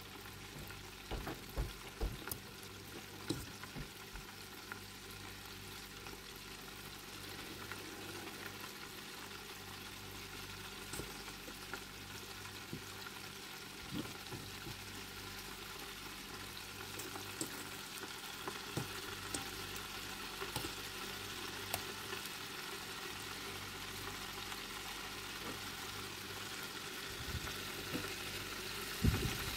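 Battered pollock fillets frying in hot oil in an electric deep fryer: a steady sizzle that swells slightly over time. A fork clinks against the bowl and plate in the first few seconds, and near the end there is a louder clatter and sputter as a fork works in the fryer.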